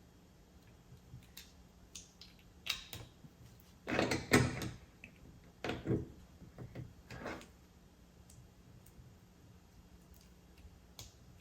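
Plastic LEGO pieces being handled and pressed together: scattered small clicks and rattles, with the loudest cluster of knocks about four seconds in and more around six and seven seconds.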